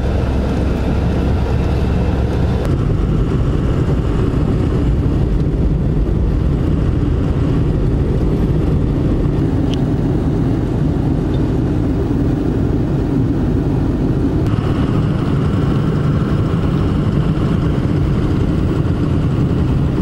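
Steady engine and road noise of a car or truck being driven.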